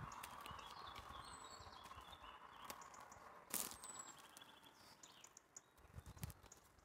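Faint footsteps on a dirt forest floor scattered with twigs, with small clicks and one sharper crack about halfway through. Birds chirp faintly a few times.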